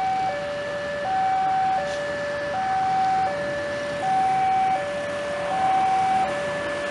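Railway level-crossing warning alarm sounding a steady alternating two-tone chime, a higher and a lower note each held about three-quarters of a second. It is the signal that a train is approaching the crossing.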